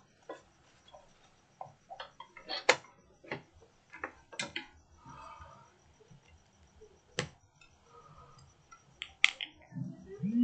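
Scattered sharp clicks and light taps from a phone and its charging cable being handled and plugged in, with a few louder clicks among them.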